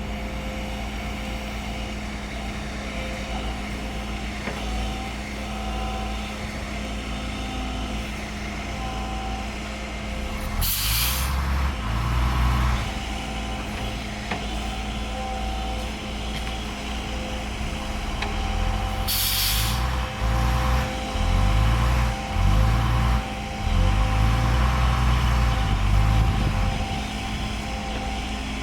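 Heavy diesel machinery running steadily, its engine working harder in uneven surges from about ten seconds in, with two short sharp hisses of released compressed air.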